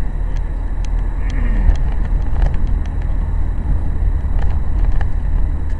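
Car on the move: a steady low rumble of engine and road noise, with scattered faint ticks.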